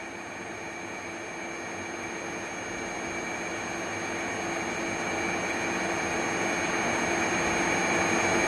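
Steady machine hum with a few fixed whining tones, growing gradually louder throughout.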